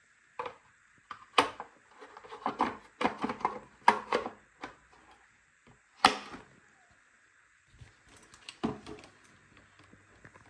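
Hard knocks and clatter from a 1976 Hoover Junior upright vacuum cleaner being handled while switched off. There is a quick run of clacks in the middle, a single sharp knock before and after it, and another knock near the end.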